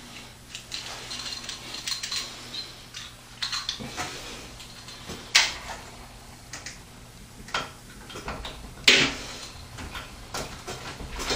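Scattered clicks, clinks and knocks of hardware being handled inside a desktop PC case, the sharpest about five and nine seconds in.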